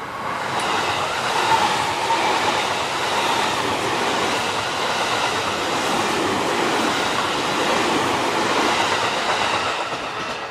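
A Tokyo Metro 16000-series Chiyoda Line train passes through at speed, a steady rushing noise of wheels on rail. It builds up in the first second and fades near the end.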